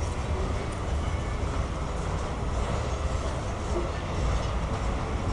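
Mixed freight train's boxcars and lumber-loaded flatcars rolling past on the rails, a steady low rumble.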